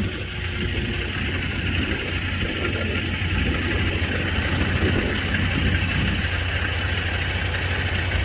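A truck's engine drones steadily under road and wind noise while the truck drives along the highway on a very windy day.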